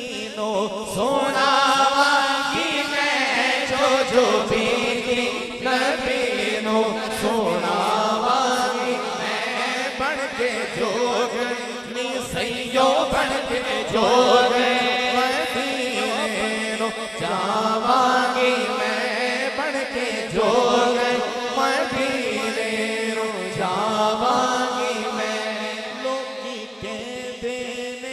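Male voice singing a naat into a microphone: drawn-out melodic notes in phrases a few seconds long, with no clear words.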